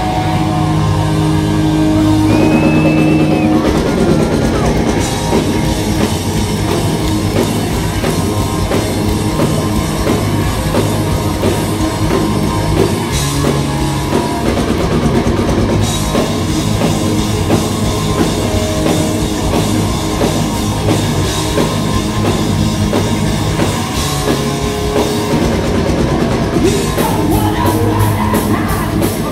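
Heavy metal band playing live: distorted electric guitars over a drum kit, loud and continuous.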